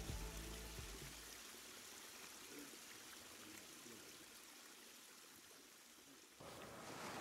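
Background music dying away in the first second, then a faint steady hiss of outdoor ambience; a louder hiss cuts in abruptly near the end.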